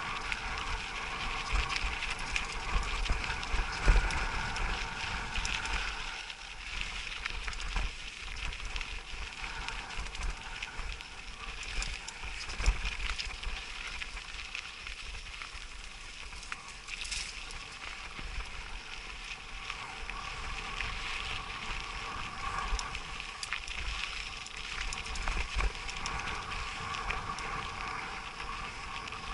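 Mountain bike riding a rocky dirt trail: tyres crunching on gravel and the bike rattling and knocking over bumps, over a steady high hiss.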